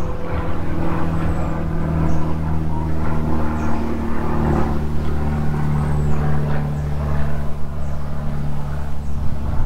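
A motor running steadily with a low hum, its pitch shifting slightly about four seconds in.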